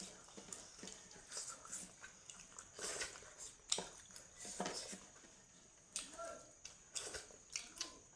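Close-miked mouth sounds of a person chewing smoked pork: irregular wet smacks and clicks, a few stronger ones in the middle.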